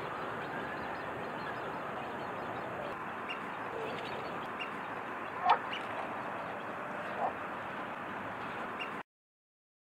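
Steady outdoor hiss with a few short bird calls, and a louder sharp call about five and a half seconds in and another near seven seconds. The sound cuts off suddenly near the end.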